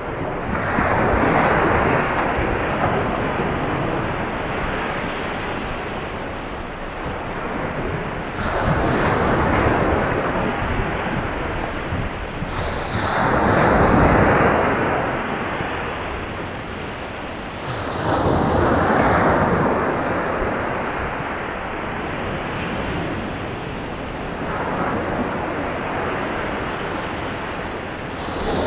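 Sea waves breaking and washing up a beach: five surges in turn, each swelling and fading over several seconds.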